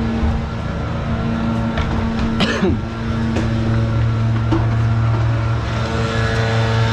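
Small engine of lawn-care equipment running steadily at constant speed, with a brief falling whine about two and a half seconds in.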